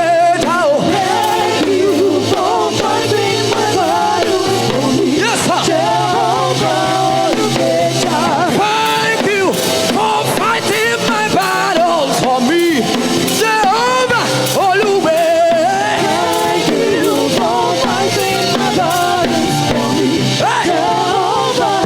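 Live gospel worship music: a band with drum kit and keyboard-bass playing steadily under gliding vocal lines.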